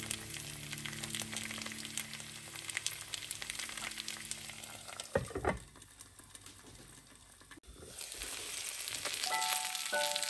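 Thin potato slices sizzling and crackling in butter in a frying pan. About five seconds in a stainless steel lid clanks onto the pan and the sizzle turns muffled and quieter, then it comes back louder near the end with the pan uncovered and steaming, with a few soft musical notes.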